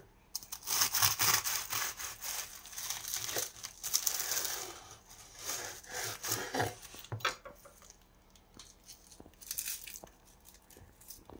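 Serrated bread knife sawing through crisp, flaky baked puff pastry topped with crushed walnuts, the crust crackling and crunching with each stroke. The crackling stops about seven seconds in, leaving a few light taps and clicks.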